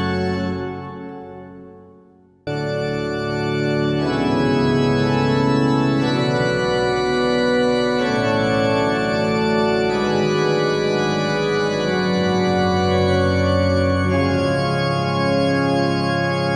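Background music fading out, then organ music starting abruptly about two and a half seconds in, playing slow held chords that change every couple of seconds.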